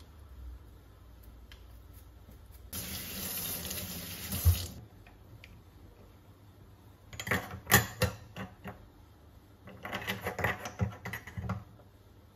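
A tap runs into a stainless steel sink for about two seconds and stops with a thump. Then come two bursts of rapid clicking and clattering as the metal drain strainer basket is worked loose and handled in the sink drain.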